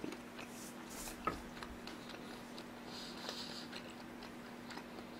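Faint, soft chewing of a piece of raw shrimp sushi with the mouth closed: scattered small mouth clicks and ticks. A steady low hum runs underneath.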